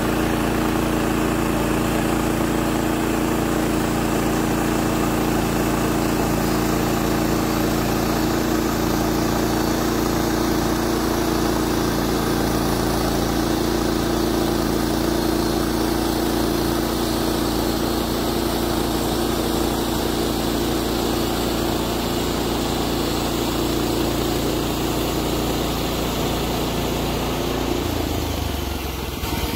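Woodland Mills HM126 portable bandsaw mill running its 14 hp engine at a steady speed while the band blade cuts lengthwise through a Douglas fir log. The engine note drops and changes about two seconds before the end.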